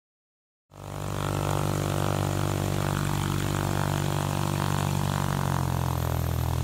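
Intro sound effect: a steady, low, buzzing drone that starts about a second in, its pitch shifting slightly near the end.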